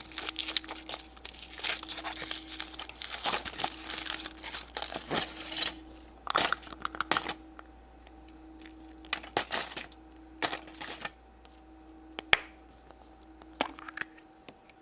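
Foil wrapper of a chocolate surprise egg being crinkled and torn off by hand: dense crackling for the first several seconds, then scattered rustles, and a couple of sharp clicks near the end.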